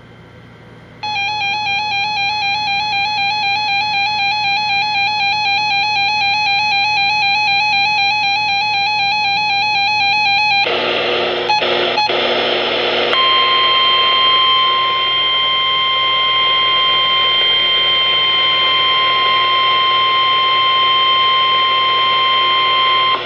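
NOAA Weather Radio alert signals. About a second in, a warbling electronic tone starts and runs for about ten seconds. A couple of seconds of radio static with two clicks follows, and then a steady single-pitch warning alarm tone is held for about ten seconds. The alarm tone announces an emergency alert.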